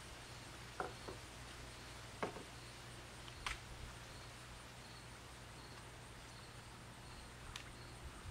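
Quiet outdoor background: a steady low hum, faint regular insect chirping, and a few soft, short clicks.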